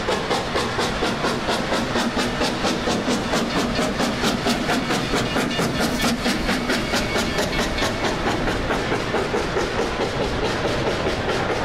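Rio Grande K-28 2-8-2 narrow-gauge steam locomotive working along steadily, its exhaust chuffing in rapid, evenly spaced beats.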